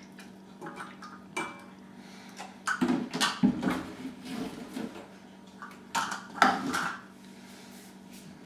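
Kitchen items being handled and knocked together: plastic measuring cups clattering against a metal bowl, with a plastic jug moved about. The clatter comes in clusters, loudest about three seconds in and again about six seconds in.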